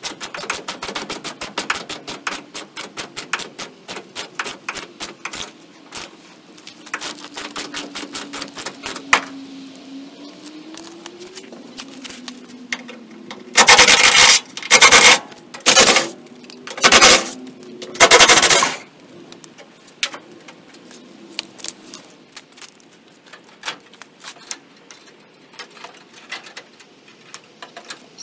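Ratchet wrench clicking in quick runs as fender bolts are backed out from under the car. About halfway through come five short, loud bursts of an impact wrench spinning the bolts, then more scattered ratchet clicks.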